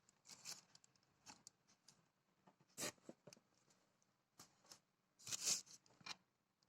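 Faint rustling and clicking of packaging being handled by hand, in short scattered bursts, with a louder rustle a little before halfway and another about five seconds in.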